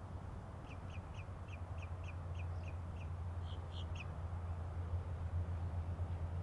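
A bird calling a quick run of about a dozen short, high notes, then a few louder ones, over a steady low rumble.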